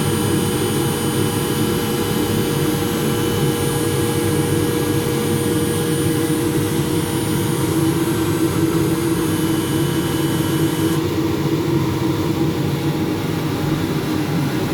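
A machine running steadily, with a constant hum and a few steady whine tones. The highest whine drops out about eleven seconds in.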